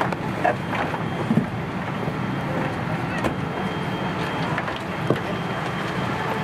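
Steady airliner cabin noise inside a Boeing 777-200ER at the gate, with a few scattered knocks and clicks from passengers stowing bags in the overhead bins.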